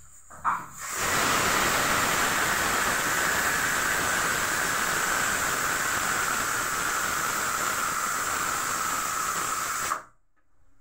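Pressure cooker whistling: steam jetting from the vent under the weight in a loud, steady hiss with a whistling tone. It starts about a second in and cuts off suddenly near the end, the sign that the cooker has come up to full pressure.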